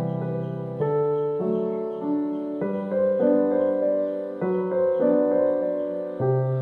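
Background piano music, held chords changing about once a second.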